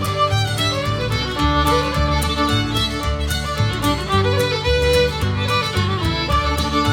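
Background music: upbeat fiddle tune with a steady beat and strummed accompaniment, in a bluegrass or country style.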